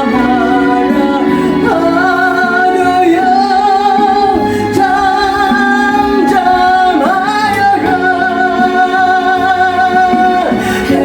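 Solo gospel song: a voice singing long held notes with vibrato over instrumental accompaniment.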